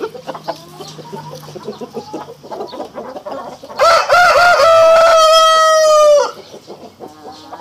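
Brahma rooster crowing once, about four seconds in: three short notes and then a long held note that drops slightly at its end, lasting about two and a half seconds and far louder than anything else. Brahma hens cluck softly before and after the crow.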